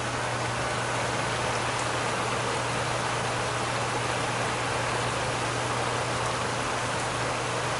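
Liquid nitrogen boiling off around a cold-soaked aluminium and Teflon mock-up plate: a steady hiss like rain, with a steady low hum underneath.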